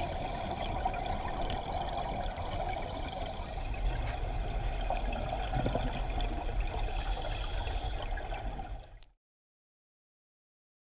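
Underwater ambience picked up by a diving camera: a steady, muffled water noise that cuts off abruptly to dead silence about nine seconds in.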